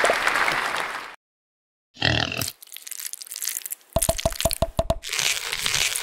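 Crackling, crunching noise effects that cut off about a second in. A short burst follows after a brief silence, then a quick run of about seven or eight sharp clicks, then more crackling.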